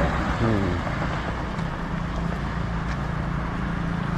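Street traffic: a motor vehicle running close by, over a steady low rumble of city road noise.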